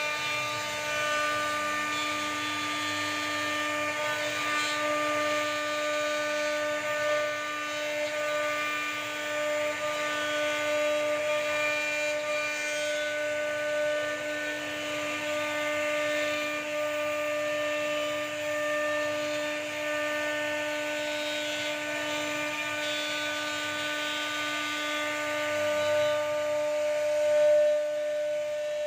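CNC router spindle carving a wooden bed panel with a small end mill: a steady high-pitched motor whine with the hiss of the bit cutting through the wood.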